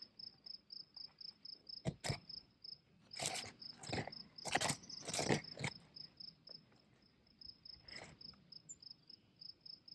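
An insect chirping steadily in a high, even pulse, about four chirps a second, with a cluster of sharp knocks and rustles from a couple of seconds in to about halfway, and one more knock near the end.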